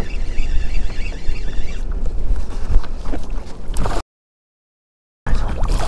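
Wind buffeting the microphone with a steady low rumble, while a hooked speckled trout thrashes and splashes at the surface beside the kayak as it is brought to the landing net. The sound cuts out completely for about a second near the end, then the splashing carries on.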